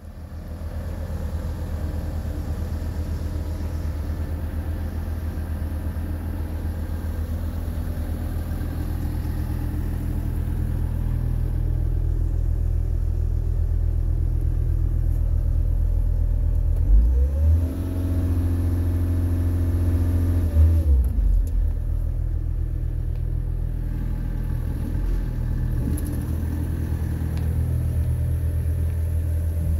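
Bobcat Toolcat's diesel engine starting and then idling steadily, revved up about halfway through, held higher for a few seconds, and dropped back to idle.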